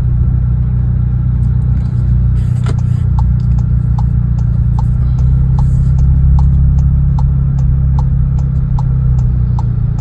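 Exhaust of a 2021 VW Tiguan fitted with a B2B Fab Tiggypipe (Venturi version), heard from inside the car while driving: a steady low hum that swells a little midway. A light regular ticking, about two to three ticks a second, starts about three seconds in.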